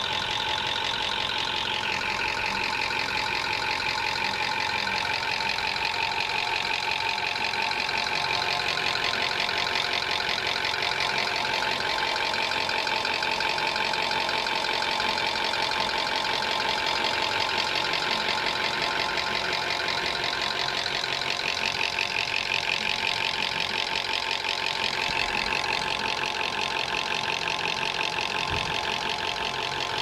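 Toyota VVT-i engine idling with a fast, steady top-end knocking and rattle, heard close to the valve cover. It is a top-end noise that the mechanic puts down to poor maintenance.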